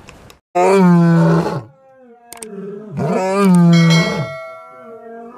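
Male lion roaring: two long, loud calls about two seconds apart, each rising and then falling in pitch.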